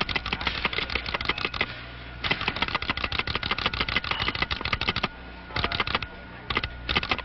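Rapid, dense mechanical clicking, many clicks a second, like a typewriter. It breaks off briefly about two seconds in, stops about five seconds in, then comes back in short spurts near the end. A steady low hum lies under it.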